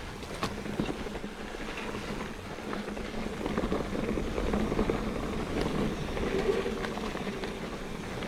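Mountain bike rolling down a dirt trail: continuous tyre noise with scattered clicks and rattles over rough ground, and a steady hum underneath.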